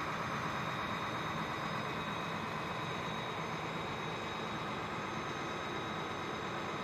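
Steady mechanical drone of flight-line machinery, with a high whine made of several steady tones over an even rushing noise.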